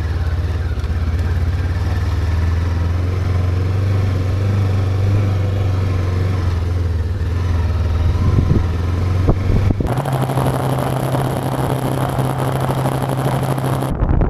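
Motorcycle engine running at low speed under way, a steady low hum. About ten seconds in, the sound changes abruptly to a different, higher steady engine note with constant hiss, as when riding faster.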